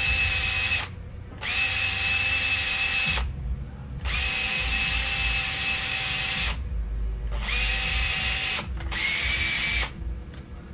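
Small handheld power tool spinning a Q-tip against metal to clean out the inside of a carburetor body. It runs in five bursts of a steady high whine with short pauses between them, and the last burst is slightly lower in pitch.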